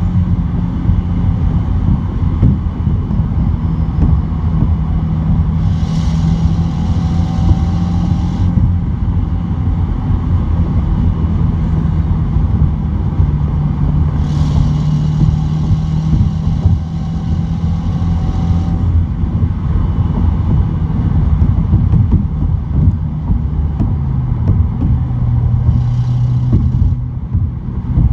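2017 Subaru WRX's turbocharged 2.0-litre flat-four pulling at speed, with road noise, heard from inside the glove box. A high hissing noise comes in three times, each for a few seconds: the noise at high boost that turned out to be a boost leak.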